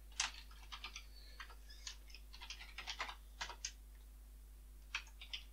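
Light, irregular tapping of typing on a smartphone's touchscreen keyboard, a few quick taps at a time with short pauses between.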